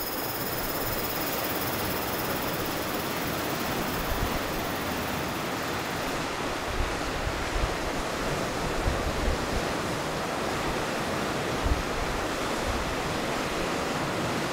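Steady rush of wind and sea, with gusts buffeting the microphone in uneven low rumbles from about four seconds in.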